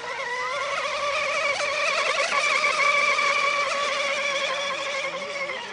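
Radio-controlled model speedboat running flat out across the water: a steady, high-pitched motor whine that swells as the boat passes and drops away near the end.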